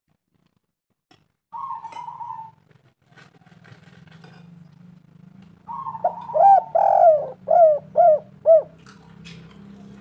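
Spotted dove (tekukur) cooing: one short coo about a second and a half in, then a longer phrase of several arching coos in the second half, which is the loudest part.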